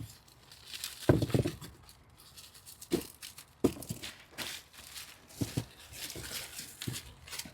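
Plastic bulb packets being handled and torn open, with short rustles and a few knocks as bulbs are tipped into a tub.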